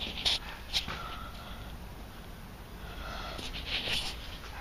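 A person sniffing and breathing close to the microphone: a few short breathy puffs, one soon after the start and a cluster near the end.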